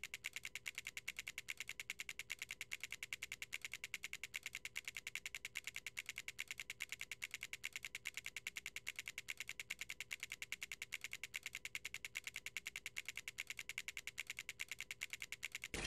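Plastic LEGO bricks clicking into place one after another, an even stream of sharp clicks about six a second that cuts off just at the end.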